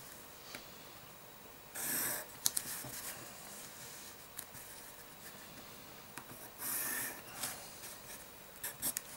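Pencil drawn along a ruler on paper: two rasping strokes of about half a second each, one about two seconds in and one about seven seconds in, each ruling an axis line. A few light clicks come as the ruler is shifted on the paper.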